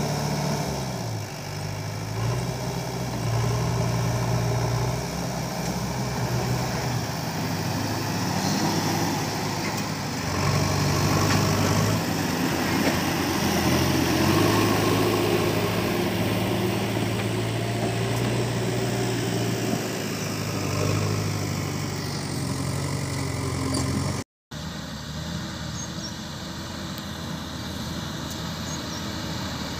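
Heavy diesel engines running: a JCB 3DX backhoe loader and a loaded tipper lorry, the engine note stepping up and down as they work and pull away. The sound breaks off for a moment about 24 seconds in, then lorry engines go on running.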